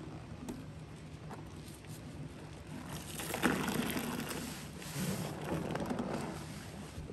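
Bleach water and suds sloshing and squishing. The wet noise swells about three seconds in and eases off near the end.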